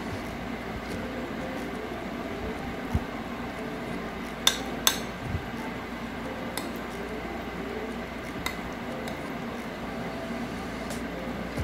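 Metal spoon and fork clinking and scraping against a plate while eating: a few sharp clinks, the loudest two close together about four and a half seconds in.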